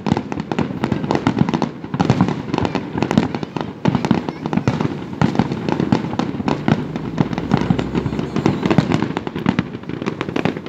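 Fireworks going off in a rapid, continuous barrage of bangs and crackles with no pause.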